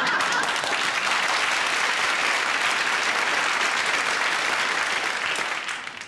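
Studio audience applauding steadily, with some laughter mixed in at the start; the applause dies away near the end.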